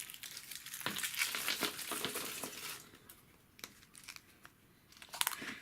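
Wrapper crinkling and rustling as a chocolate surprise egg is unwrapped, dense for about three seconds, then quieter with a few small clicks.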